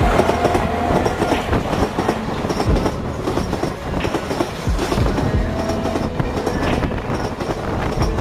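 Express train running past at speed, its wheels clattering irregularly over rail joints, with a faint steady whine briefly near the start and again about two thirds of the way through.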